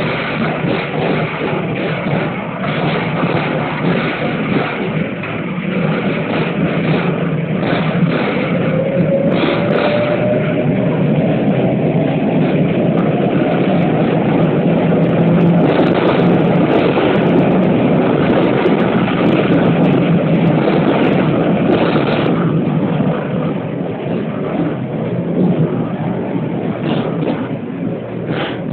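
Tram (streetcar) running, heard from inside the car: a steady rumble of wheels on rails with frequent knocks and rattles of the car body. It grows louder through the middle of the stretch, with a faint tone rising in pitch as the tram gathers speed, then eases off.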